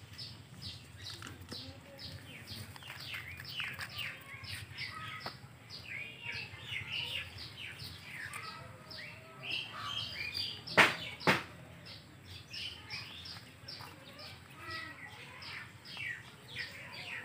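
Small birds chirping busily and continuously, many short falling chirps overlapping. Two sharp knocks a little past the middle, half a second apart, are the loudest sounds.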